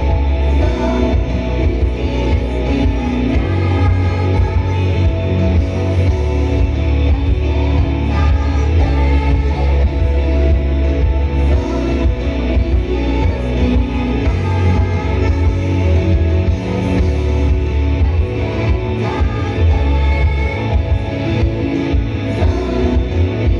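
Live performance of an idol group's pop-rock song: guitar-led music with a heavy bass line and singing.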